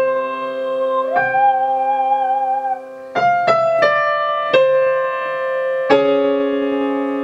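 Digital piano playing sustained chords while a woman's voice holds one sung vowel with vibrato for about a second and a half, as in a vocal exercise. After that the keyboard alone strikes a quick series of four chords, then another chord about six seconds in.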